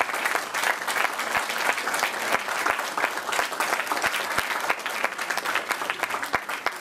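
Audience applauding, a dense clapping that slowly fades and thins toward the end.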